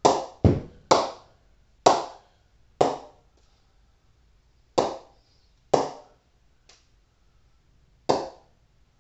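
Ball bounced repeatedly on the face of a 17-grain SG Sunny Tonny Xtreme English willow cricket bat: about eight sharp knocks, each with a short ringing ping, unevenly spaced with a pause of about two seconds after the fifth. The clean, lively ping is the sign of a responsive blade, one with excellent ping.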